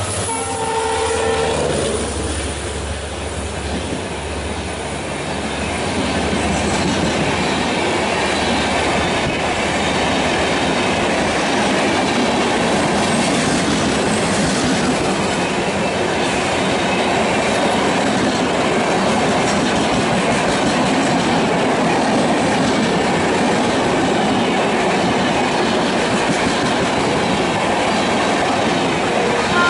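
WDP4D diesel locomotive (EMD two-stroke engine) going past at speed, its engine sound dropping away in the first couple of seconds. After that, its passenger coaches rush past at high speed: a loud, steady rumble and rattle of wheels on rails that swells about six seconds in and then holds level.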